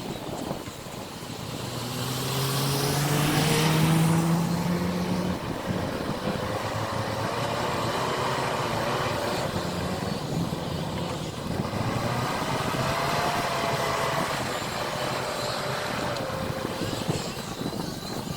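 JCB 4CX backhoe loader's diesel engine working under load. It revs up with a rising pitch about two seconds in, then runs on with its pitch rising and falling as the machine works.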